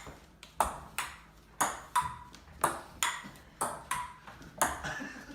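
A run of short metallic pings, about two a second, each struck sharply and ringing briefly.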